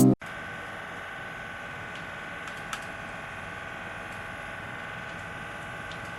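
Original PlayStation 4's cooling fan running with a steady whir and a constant whine: the loud-fan fault that calls for a replacement fan.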